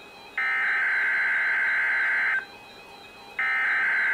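NOAA Weather Radio's Emergency Alert System SAME header: bursts of digital data tones, each about two seconds long, marking the start of a Required Weekly Test. One burst plays, stops, and after about a second of gap the next burst begins.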